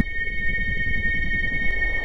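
Ambient electronic soundtrack music: a few sustained high tones held over a low rumble, just after a loud, deep passage cuts off abruptly.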